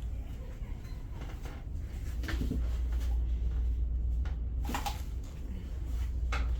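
Three short knocks, about two seconds apart, over a steady low hum.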